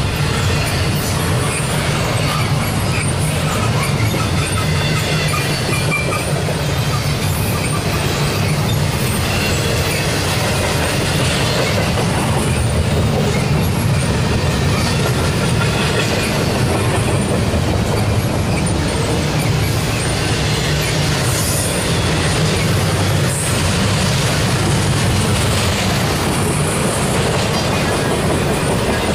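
Double-stack intermodal well cars of a freight train rolling past: a steady, loud rumble of steel wheels on rail, with faint brief wheel squeals now and then.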